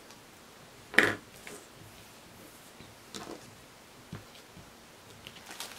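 Cut cotton fabric pieces being handled and laid out on a wooden table: a sharp knock about a second in, then a few soft rustles and taps.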